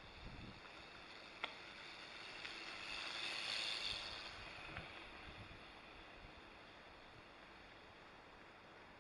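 A bicycle passing on a gravel forest track: the tyre noise swells, peaks and fades over a few seconds. A single sharp click about a second and a half in.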